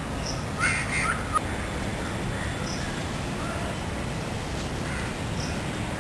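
A crow cawing twice about a second in, harsh and close together, with faint high bird chirps now and then over a steady low background rumble.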